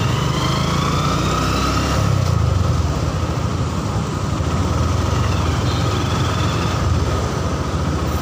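Honda Verza 150 motorcycle's single-cylinder engine running on the move, heard from the rider's seat with traffic around it: a steady low rumble, with a pitch that rises over the first two seconds as the bike speeds up.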